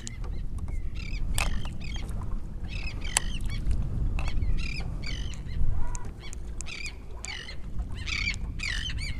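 Birds calling over and over in short, high notes that waver up and down in pitch, over a low rumble of wind on the microphone.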